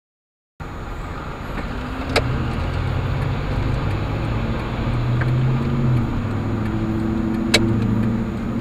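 Car engine running with road noise, heard from inside the cabin through a dashcam microphone as the car moves slowly. The sound starts about half a second in after a short silence, and two sharp clicks come about two and seven and a half seconds in.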